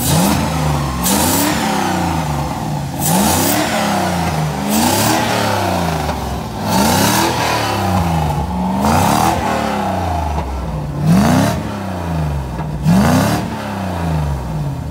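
Lexus 3UZ-FE V8 free-revving in neutral: the throttle is blipped about every two seconds, the engine note rising sharply and sliding back down toward idle each time.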